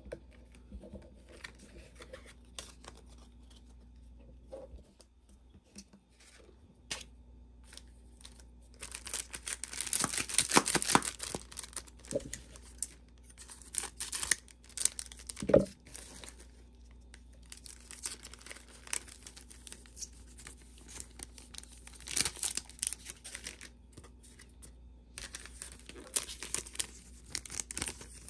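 Pokémon card booster packs being torn open by hand, with the pack wrappers crinkling and cards handled. Quiet handling for the first several seconds gives way to repeated spells of tearing and crinkling.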